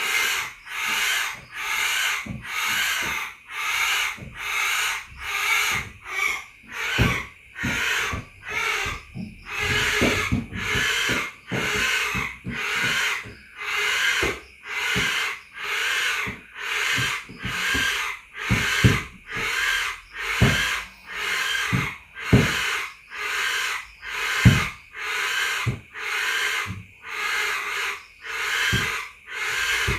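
A night animal's rhythmic call, a hissing pulse repeating evenly about one and a half times a second, with scattered soft low knocks in between.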